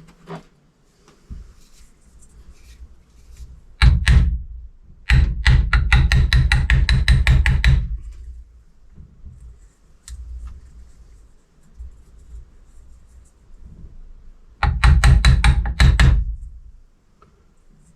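Rapid runs of hard knocking, like a hammer striking the parts of an electric turbocharger being dismantled. There is a short burst about four seconds in, a longer run of about three seconds, and another run near the end.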